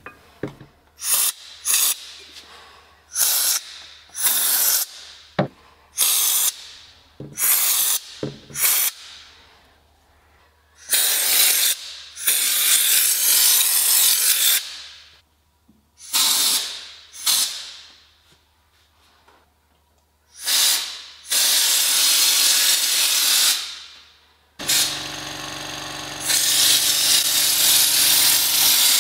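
Compressed-air underbody-coating gun spraying two-component polyurethane bed liner into a car's wheel well, in many short hissing bursts and a few longer ones of several seconds. The last burst, near the end, has a low hum under it.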